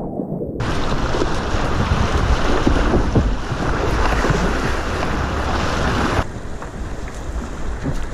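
Whitewater rushing and splashing around a kayak running river waves, with wind noise on the microphone. The sound is muffled for the first half second, then opens into a loud, even rush. About six seconds in it cuts to a quieter flow of river water.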